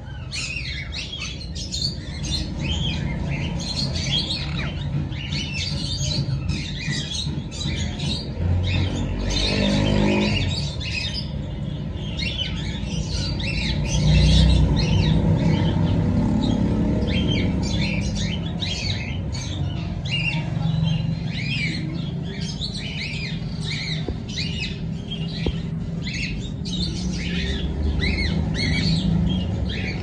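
Many caged parakeets and cockatiels chirping and squawking all at once, a dense overlapping chatter of short high calls, over a low rumble.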